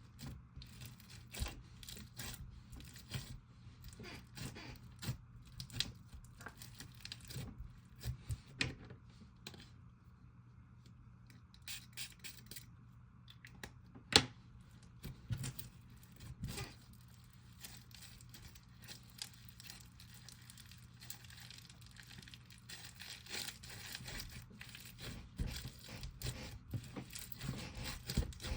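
Slime being stretched, squished and poked by hand, making irregular sticky crackles and clicks, with one sharper pop about halfway through.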